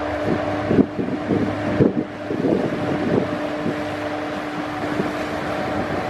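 Engines of the crew transfer catamaran Marineco Thunderbird running with a steady hum as it passes close by, with wind buffeting the microphone in irregular low thumps.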